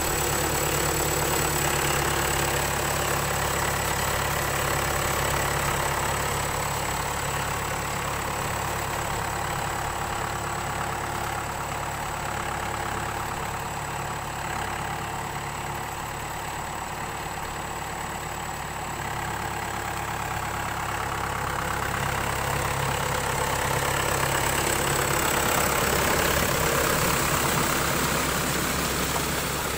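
Mahindra 595 Turbo tractor's four-cylinder turbocharged diesel engine running steadily under load as it drags a levelling blade through flooded paddy mud, easing a little in the middle and picking up again near the end.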